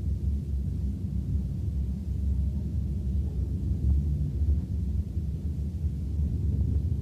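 Steady, muffled low rumble with no distinct separate sounds, like a murky low-fidelity tape recording.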